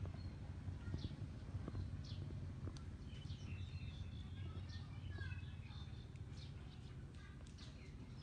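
Small birds chirping here and there in short high calls, over a steady low background hum.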